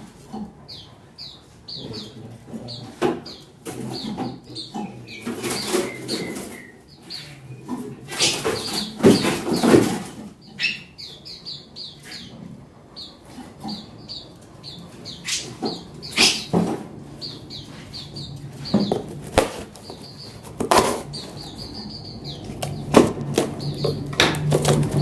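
Small songbirds giving short high chirps over and over while flapping their wings, with rustles, clicks and knocks as they are handled in their shipping box.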